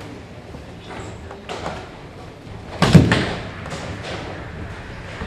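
A heavy thud about three seconds in, followed by a rumble that fades away: a nine-pin bowling ball landing on the lane and rolling toward the pins.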